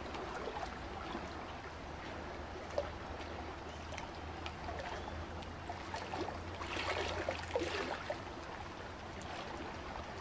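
Pool water lapping and sloshing around a camera at the water's surface, with small splashes and bubbly clicks, busier for a moment about two-thirds of the way in; a low steady hum runs beneath.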